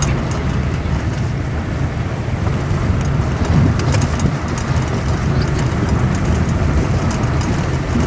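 Steady low rumble of a car driving along a road, heard from inside the car: engine and road noise.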